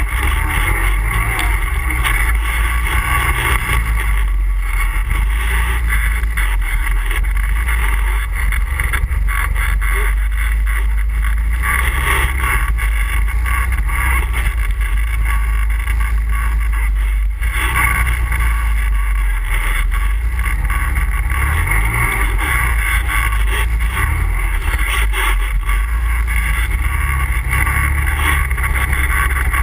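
ATV engine running steadily while riding, a continuous loud drone with no pauses.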